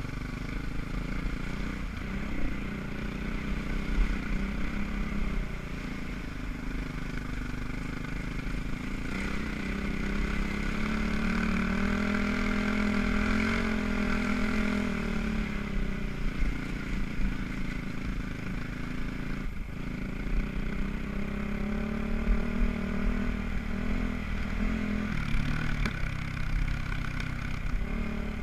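Enduro motorcycle engine running as the bike is ridden over a dirt and sand trail. Partway through it revs up to a higher pitch, then eases back to a steadier pace.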